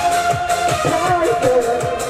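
Two Korean buk barrel drums struck with wooden sticks in a quick, even beat of about four strokes a second, over backing music with a held melody line.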